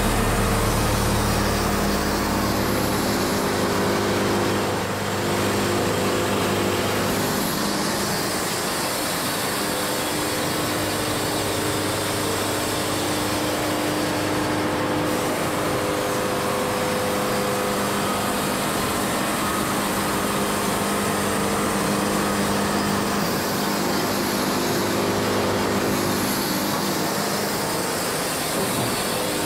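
Wood-Mizer LT70 band sawmill running steadily as its saw head travels along a Kentucky coffee tree log, the band blade sawing a cut. The running sound holds an even level, its pitch shifting a little every few seconds, and its deepest part drops away about three seconds in.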